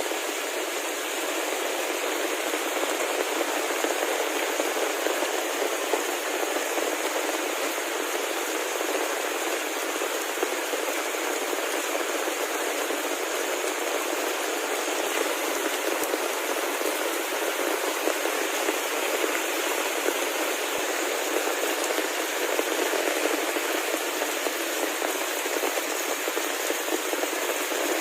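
Heavy rain falling steadily, an even wash of drops with no thunder.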